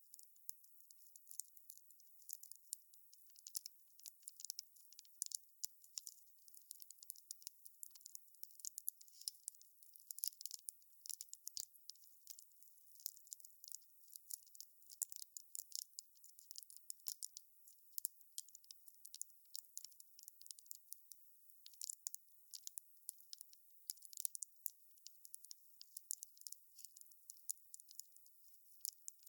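Wood fire crackling: a faint, steady run of small, sharp, irregular pops and snaps, thin and high, with no low rumble of flame underneath.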